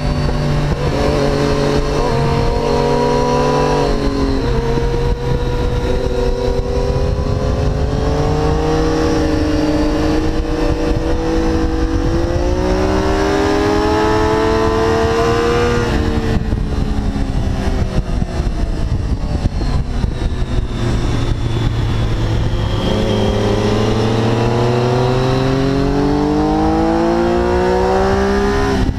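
Triumph Daytona 675's three-cylinder engine at full throttle on track, its pitch climbing through the revs, dropping sharply about halfway through as the rider shuts off or changes gear, then climbing again near the end.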